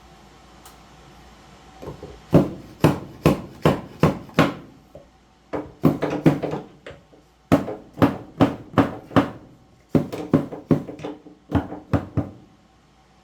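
Hammer blows on wood, sharp strikes at roughly two a second in four runs with short pauses between, about twenty in all.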